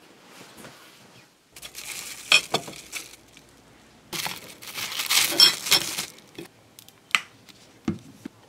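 Crinkly wrapping handled and crumpled by hand in two spells of a couple of seconds each, with sharp clicks among them, then two single clicks near the end.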